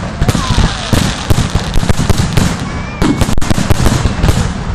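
Aerial fireworks display: a rapid barrage of shells bursting with sharp bangs, several a second, and a few faint whistles gliding in pitch among them.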